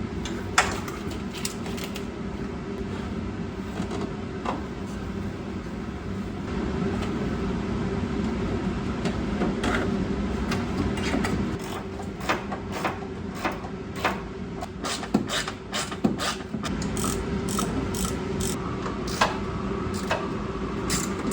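Hand tools working a bolt-on metal plate into a car's engine bay: scattered clicks and light metal knocks, coming thick and fast from about halfway through, over a steady mechanical hum.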